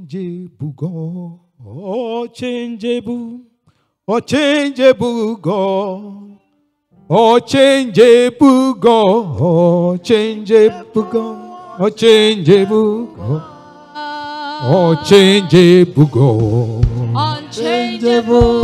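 Singing of a worship song, in phrases with wavering held notes and two short breaks in the first seven seconds, then continuous.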